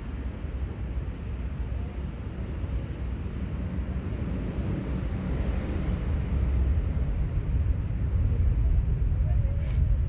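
Low rumble of a passing aircraft, growing steadily louder.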